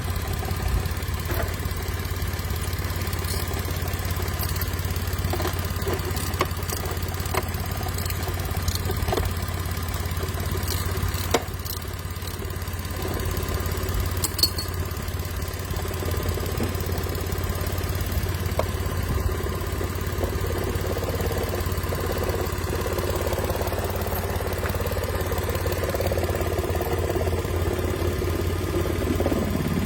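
Mitsubishi Mirage's engine idling steadily, running again after a no-start fault was fixed. A few short clicks sound in the middle.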